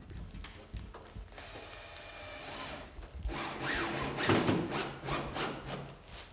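Cordless drill-driver driving a screw through the metal flashing of a roof window into the wooden frame: a steady motor whir starting about a second and a half in, then a louder, rougher run with rapid clicks from about three seconds in.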